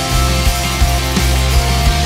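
Live rock band playing, with a drum kit keeping a steady beat under sustained bass guitar notes and guitar.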